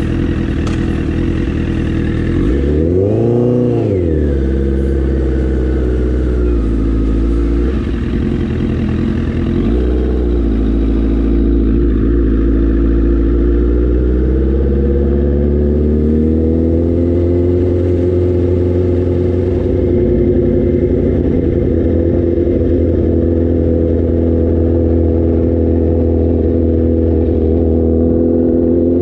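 Motorcycle engine and exhaust heard from the rider's seat at low town speed: a quick throttle blip about three seconds in, a smaller one around ten seconds, then the revs climb gradually as it picks up speed and settle to a steady cruise.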